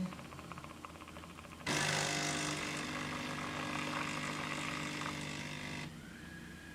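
Siemens EQ500 Classic coffee machine running while it makes a cappuccino: a steady hum with a hiss starts suddenly about two seconds in and cuts off about four seconds later. Faint rapid ticking comes before it.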